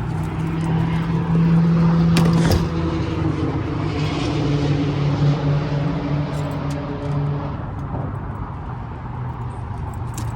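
Boat motor running steadily, its note shifting about two and a half seconds in and dropping back about eight seconds in.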